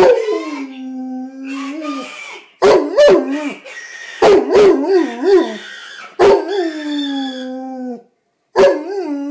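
A pet dog howling: a run of several long howls, each starting sharply and then wavering before sliding down in pitch, with short breaks between them.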